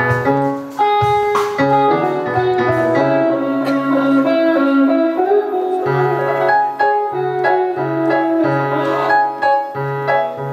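Stage keyboard played live with a piano-like sound, chords over a repeating low bass line, with an electric guitar joining in.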